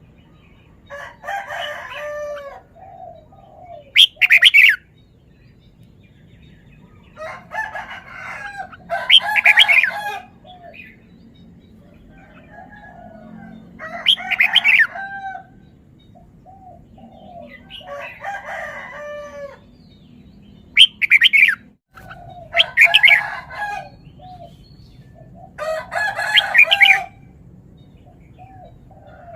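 Red-whiskered bulbul singing, repeating short warbled phrases every few seconds with pauses between them.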